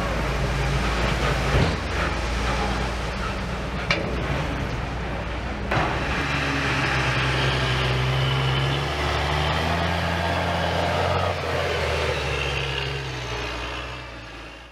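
Heavy farm tractor diesel engines working under load, a steady low drone whose pitch shifts partway through, with a few brief sharp knocks, fading out at the end.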